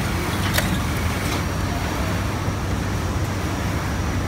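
Steady low background rumble, with a sharp metallic click about half a second in and a fainter one a moment later as an Allen key is worked in a screw inside a coverstitch sewing machine's looper mechanism.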